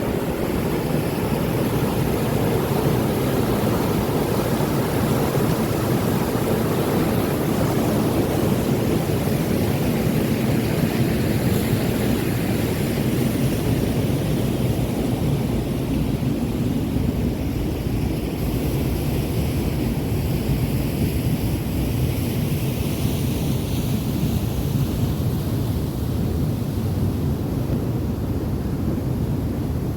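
Waterfall roaring: a loud, steady rush of falling water, deepest in the low range. The higher hiss thins out about halfway through.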